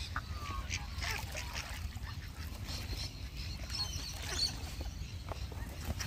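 Several birds calling in short, scattered squawks and chirps over a steady low rumble.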